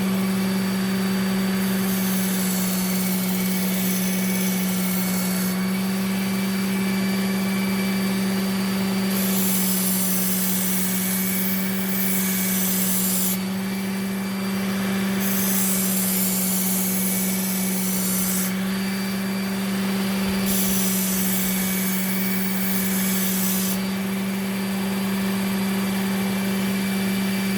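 Work Sharp Ken Onion Elite belt sharpener running with a steady motor hum while a chef's knife edge is drawn across its fine, compound-dressed belt in about five passes of a few seconds each, each pass adding a high hiss as the burr is polished off.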